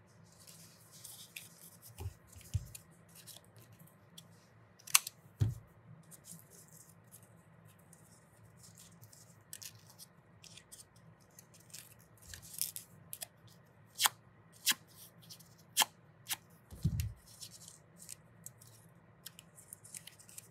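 Thin paper petals rustling and crinkling as fingers fold and curl them. Several sharp clicks and a few soft low thumps of hands against the table are mixed in.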